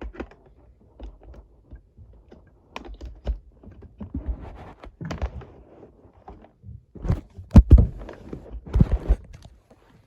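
Irregular thumps, knocks and clicks of a mini fridge and its power cord being handled and plugged in, the heaviest thumps about seven to eight seconds in.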